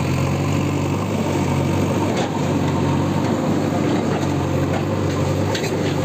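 An engine running steadily at an even, unchanging pitch, with two light clicks about two and five and a half seconds in.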